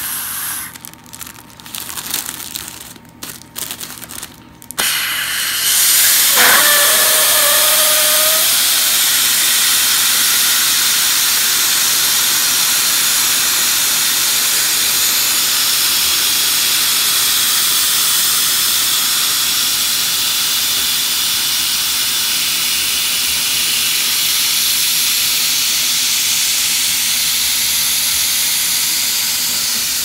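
Helium hissing steadily from a helium tank's nozzle into the Air Swimmers shark's plastic envelope as it inflates. For the first few seconds there is only crinkling and handling of the plastic at the nozzle. The hiss starts about five seconds in, with a brief falling squeal just after it begins.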